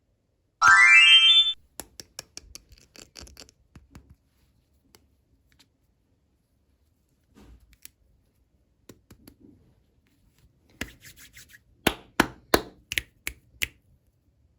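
A short, loud tone rising in pitch about a second in, then small clicks, taps and rustling as miniature plastic toy pieces are handled, with a run of sharper, slightly ringing clicks near the end.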